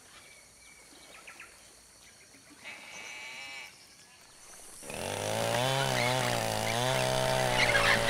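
Faint forest ambience with a few scattered bird calls, then about five seconds in a loud droning sound comes in, its pitch wavering up and down before settling.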